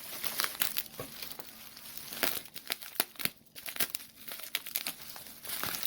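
Bubble wrap and plastic packaging being handled and pulled away, irregular crinkling and crackling with a brief pause about three and a half seconds in.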